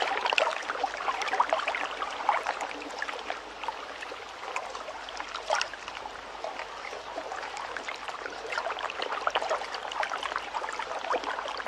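Recorded lakeshore water sound: water lapping and trickling at the edge of a lake, a steady wash dotted with many small irregular splashes.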